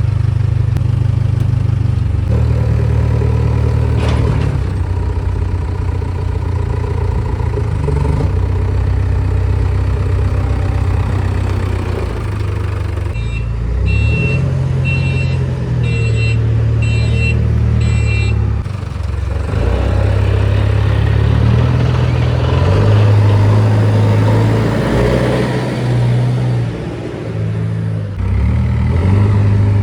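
Diesel engine of a JCB 3DX backhoe loader running under working load, its note rising and falling as the machine digs and moves. About halfway through, a short high beep sounds about once a second for roughly five seconds, typical of a reversing alarm.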